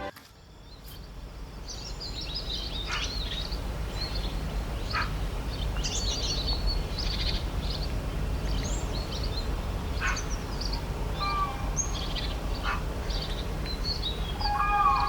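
Many small birds chirping and calling, short quick notes one after another over a steady low rumble of outdoor ambience, with a longer held call near the end.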